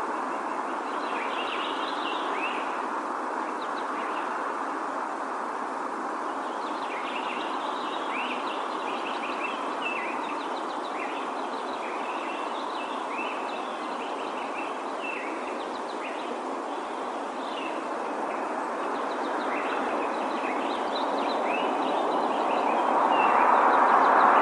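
Small birds chirping in short, repeated calls over a steady rushing background noise, which swells louder near the end.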